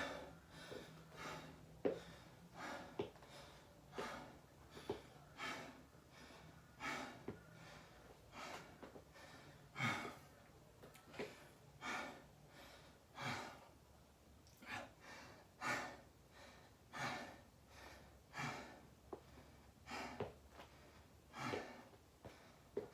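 A person breathing hard while recovering from a set of burpees: a steady run of deep breaths, about one every second or so.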